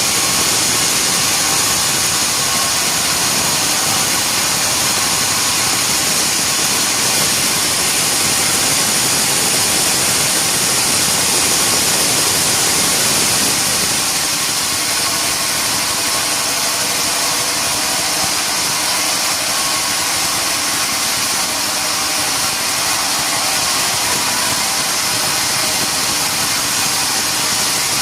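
Band sawmill machinery running steadily, a loud continuous machine noise with a strong hiss, dipping slightly in level about halfway through.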